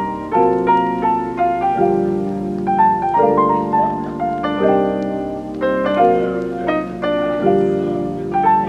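Background music: piano playing a melody over held chords that change about every one and a half seconds.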